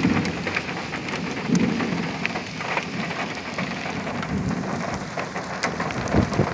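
Heavy thunderstorm rain falling steadily, with many sharp ticks of drops striking close by and a few low rumbles.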